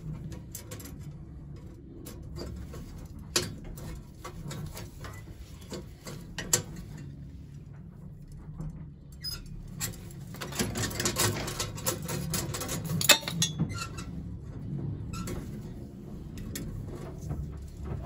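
Scattered clicks, taps and light scraping from a hand tube bender and thin metal tubing being bent and handled, with a busier run of rattling and scraping about ten seconds in and a sharp tap about thirteen seconds in, over a steady low hum.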